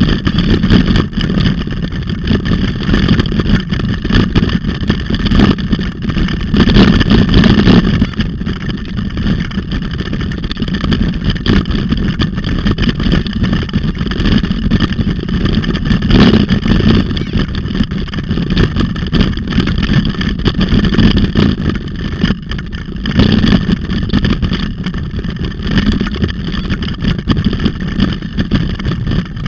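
Steady loud rush of wind over a bike-mounted camera's microphone, mixed with the rattle of the bicycle rolling over a dirt road.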